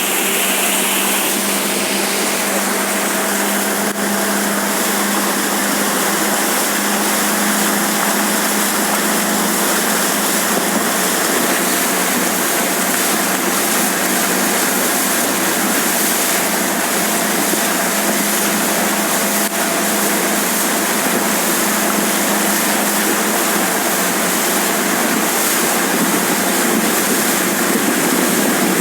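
Steady rush of water and wind with a motorboat engine running underneath, as the boat tows a wakeboarder at speed.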